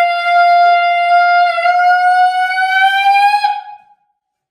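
A person's voice holding one long, loud, high note that slowly rises in pitch, cut off about three and a half seconds in.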